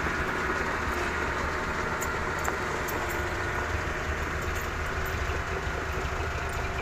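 Hino Dutro dump truck's diesel engine running steadily at a low, even speed.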